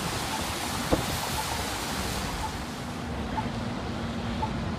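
Traffic on a wet road: the steady hiss of car tyres, with wind on the microphone, swelling for a moment as a car passes about a second in. A faint short beep sounds about once a second.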